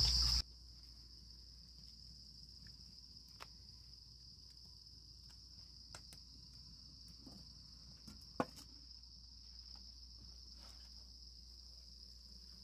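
Crickets chirring in one steady, unbroken high-pitched trill, with a few faint clicks and one sharper knock about eight seconds in. A louder sound cuts off abruptly in the first half second.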